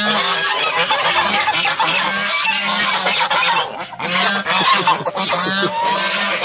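A flock of white domestic geese honking, many calls overlapping, with a brief lull about four seconds in.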